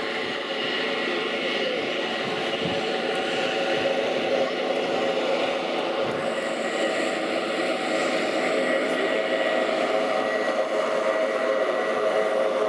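Jet aircraft engine running steadily on the ground: a continuous rushing noise with a steady whine that grows a little louder towards the end.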